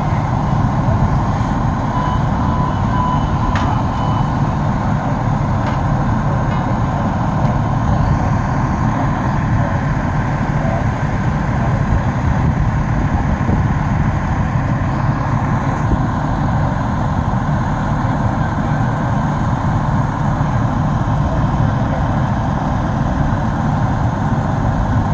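Fire apparatus diesel engines running steadily at the scene: a constant, loud, low drone.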